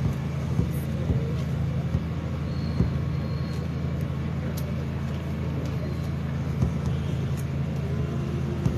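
Steady low engine hum, unchanging throughout, with faint crowd murmur and a few light clicks.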